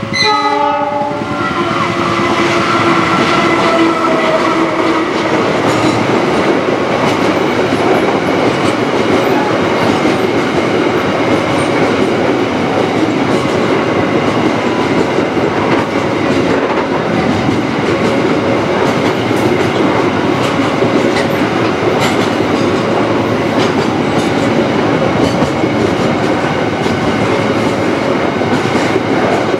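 A diesel-electric locomotive passes close by, its engine note sliding down in pitch in the first few seconds. It is followed by a long container freight train whose wagons rumble and clack steadily over the rail joints.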